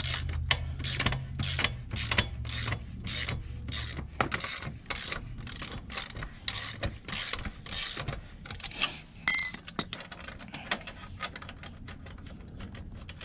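Socket ratchet wrench clicking in a steady run, about three clicks a second, as the chain adjusters are worked to set the slack on the rear axle. A brief metallic ring about nine seconds in, then a few slower clicks.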